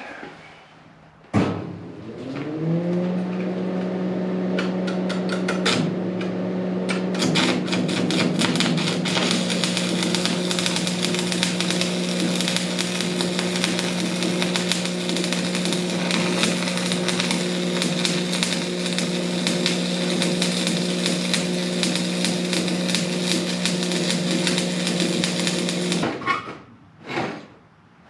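Stick welding with a 7018 electrode: a dense, steady arc crackle over a steady welder hum that rises briefly to pitch after a click. The sound stops abruptly near the end as the rod burns down.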